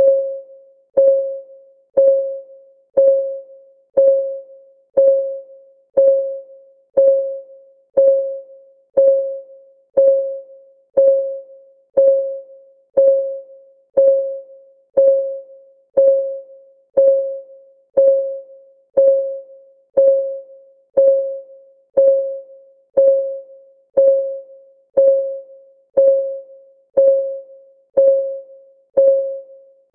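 Countdown timer's ticking sound: a short, pitched, piano-like tick once every second, each fading out quickly, in an even rhythm.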